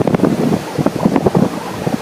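Strong wind buffeting the microphone in quick, irregular gusts, over the wash of ocean surf.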